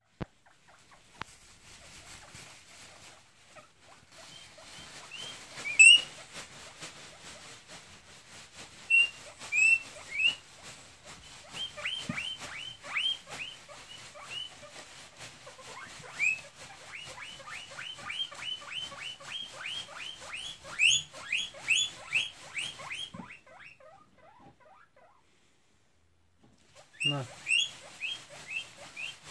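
Guinea pig wheeking from hunger: a long run of short, high, rising squeals, about two a second, breaking off for a few seconds near the end and then starting again.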